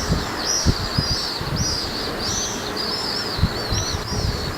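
Small birds chirping: a steady series of short, arching high chirps, about two a second, over low background noise.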